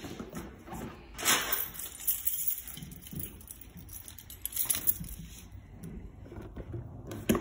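Cardboard collectible box being handled and opened: irregular rustling and scraping of the board and sleeve, with two sharp knocks near the end.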